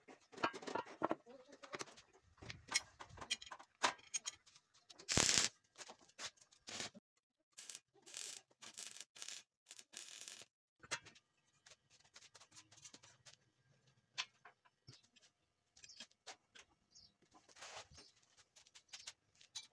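Steel parts being handled and knocked together on a workbench, with a few short bursts of arc welding as the pieces are tack-welded. Irregular clicks and knocks, the welding bursts coming in a cluster a little past the middle.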